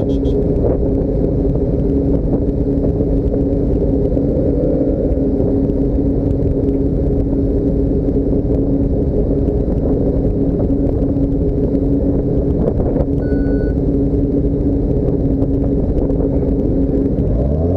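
Motor vehicle running steadily: a constant low drone with a steady hum, its pitch starting to rise right at the end.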